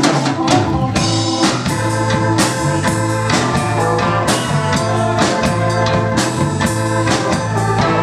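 Live rock band in an instrumental break: organ sound from a Hammond SK1 stage keyboard leading over a drum kit and bass guitar with a steady beat.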